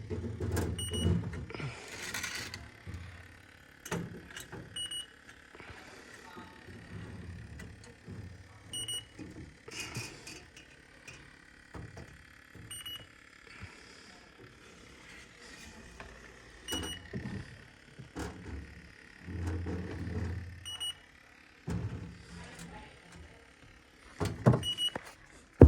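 A short, high electronic beep repeating about every four seconds, over irregular knocks, rustling and clatter of hands handling equipment.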